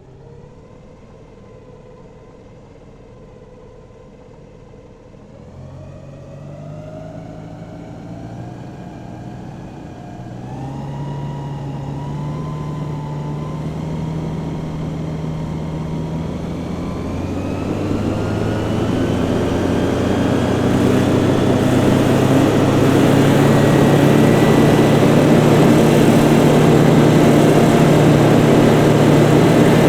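Hovercraft engine and propeller speeding up from idle in stages, louder at each step, with a rising whine, then running steadily near full power.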